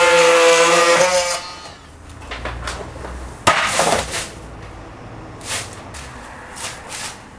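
Oscillating multi-tool buzzing at a steady high pitch as it cuts through a wooden roof batten, stopping about a second and a half in. After it, a few brief knocks and a short scraping sound.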